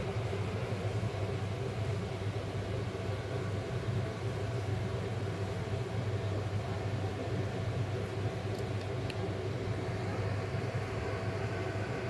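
Electric drive motor of a remote-controlled shell display prop running steadily with a low hum as it lifts the shell's upper half open. There are a few faint clicks about two-thirds of the way in.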